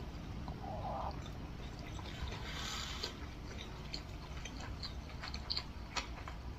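Eating sounds: soft chewing with scattered small wet mouth clicks.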